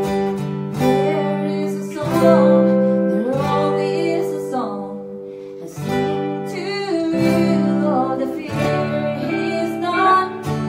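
Live acoustic-duo music: strummed steel-string acoustic guitar chords with an electric guitar playing along, and a woman singing over them. The music dips briefly quieter around the middle.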